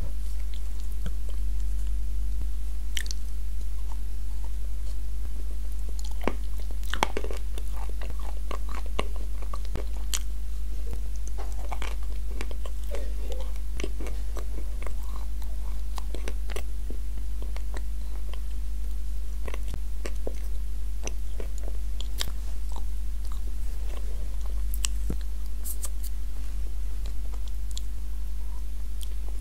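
Close-miked chewing and biting of a cookie coated in nut cream: irregular small crunches and wet mouth clicks. A steady low electrical hum runs underneath and is the loudest thing throughout.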